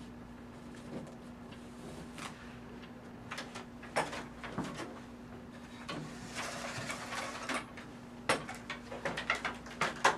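Blackout-curtain valance fabric being pressed up onto a hook-and-loop (Velcro) strip: scattered crackles and fabric rustles, growing into a quick run of sharper crackles over the last couple of seconds, over a steady low hum.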